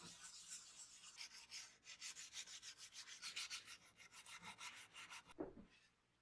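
Faint rubbing of gloved fingers over the painted metal base of a tape dispenser, a fast run of short back-and-forth strokes at about five a second. A single knock comes near the end as the strokes stop.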